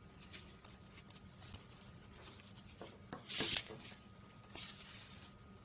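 Quiet rustling and small ticks of a braided nylon rope being handled and slid across a wooden tabletop, with a louder scraping rustle about three and a half seconds in as the rope is pulled away.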